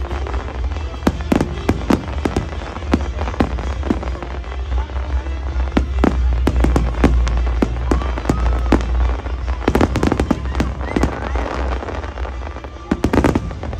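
Aerial fireworks display: a rapid, irregular string of bangs and crackles, with thicker clusters of bangs about ten seconds in and near the end, over a steady low rumble.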